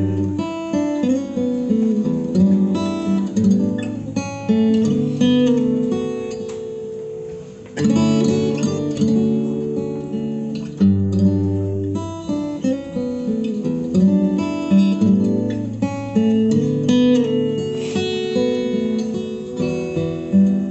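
Solo steel-string acoustic guitar played fingerstyle: a slow instrumental with a picked melody over held bass notes. About eight seconds in, a chord that has been left to ring and fade gives way to a strongly played new phrase.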